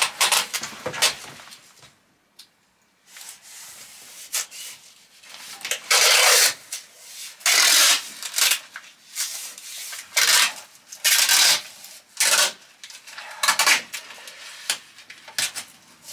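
Masking tape being pulled off the roll in a series of short, noisy tearing strips, each under a second, and rubbed down by hand along a van's metal floor panel.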